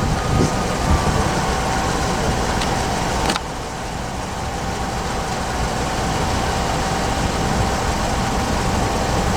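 Steady vehicle engine rumble with a faint steady tone, changing abruptly about three seconds in.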